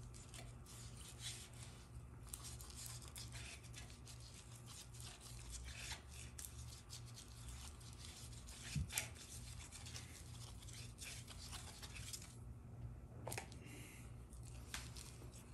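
Faint irregular brushing and rubbing as a brush works lubricant around the pump bore of a transmission case, with one louder tap about nine seconds in. A steady low hum runs underneath.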